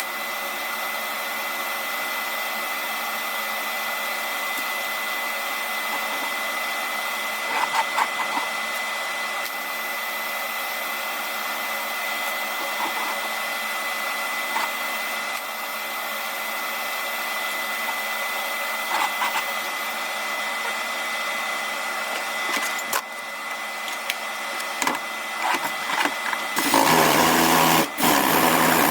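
Welding arc running with a steady hiss and a faint fixed hum for most of the stretch. A louder, rougher noise breaks in during the last couple of seconds.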